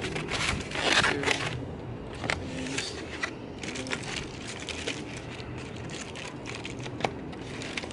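Takeout packaging being handled: a styrofoam clamshell container creaking and its contents' wrapping crinkling, heard as irregular rustles and clicks, loudest about a second in.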